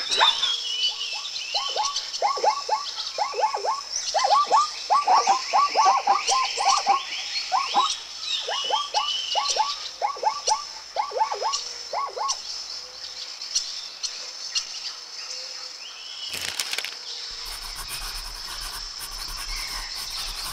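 Zebra calling: a long run of rapid, barking yelps in quick bunches, stopping about twelve seconds in. Birds chirp and insects chirr steadily in the background.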